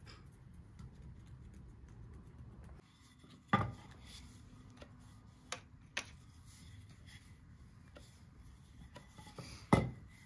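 Kitchenware being handled: two sharp knocks, one about three and a half seconds in and one near the end, with a couple of lighter clicks between.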